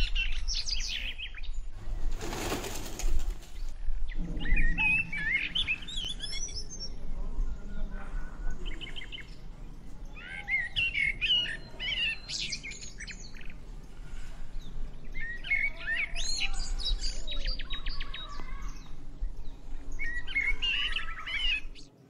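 Small birds chirping and twittering in short, varied bursts throughout. A brief rush of wing flapping comes about two seconds in.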